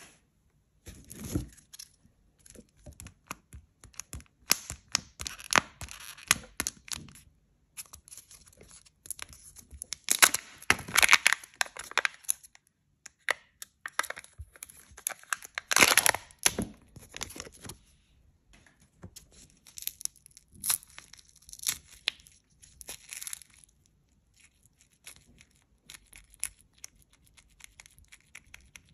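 Foil wrapper of a Kinder Joy egg crinkling and tearing as it is unwrapped by hand, in bursts of sharp crackles, loudest about ten and sixteen seconds in and fainter near the end.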